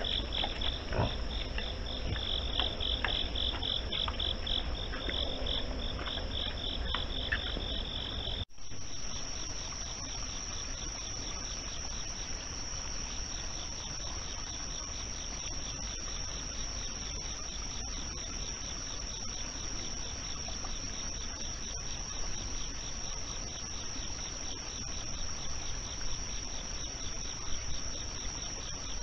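Night insects, crickets, chirping and trilling: a fast pulsing chirp over a steady high trill, with a few faint clicks. About a third of the way in the sound cuts abruptly to a steadier, slightly higher trill that carries on.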